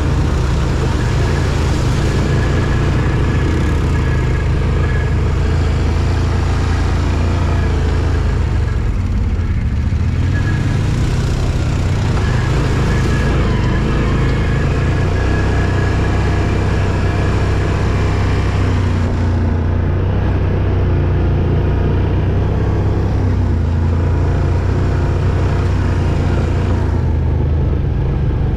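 Off-road vehicle driving, its engine running with a steady low drone and road noise.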